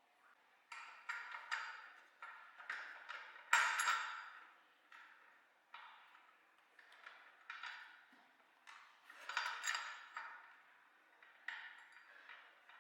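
Irregular metallic taps and clinks, about a dozen short strikes with a brief ring, the loudest about three and a half seconds in: hand tools working on metal parts.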